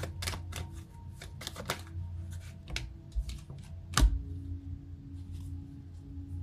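Tarot cards being shuffled and handled, a run of quick snapping clicks that thins out. About four seconds in, a card is slapped down onto the tabletop, over a low steady hum.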